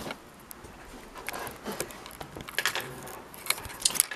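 Light clicks, taps and rustles of small objects being handled, sharpest and busiest near the end.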